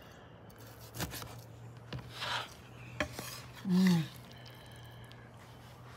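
Chef's knife slicing through a grilled, crusted ribeye steak on a wooden cutting board: the blade rasps through the crust and knocks on the board three times, about a second apart.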